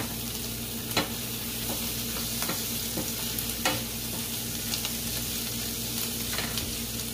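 Chopped onion, garlic and ginger sizzling in olive oil in a stainless steel frying pan, stirred with a wooden spatula that scrapes and knocks against the pan about once a second over a steady sizzle.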